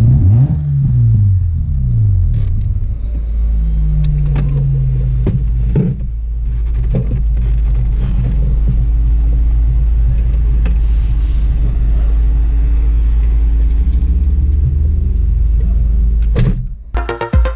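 Mazda RX-7 FD3S's 13B rotary engine running with a deep, steady rumble, its pitch gliding up and down in the first second or so, with a few sharp clicks. About sixteen and a half seconds in, it cuts off and electronic music with a beat starts.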